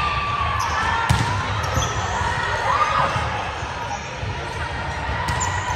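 Indoor volleyball court during play: athletic shoes squeaking on the hard court floor in short gliding chirps, with dull thuds of the ball and players moving, in a reverberant gym.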